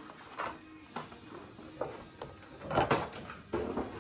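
Metal T-handle hex keys and their plastic case being handled: scattered clicks and knocks, with a louder clatter about three seconds in and another just before the end.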